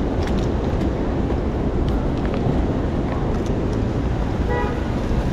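Wind buffeting the microphone over the steady rumble of wet city-street traffic, with a few faint ticks and one short pitched note, like a brief horn, near the end.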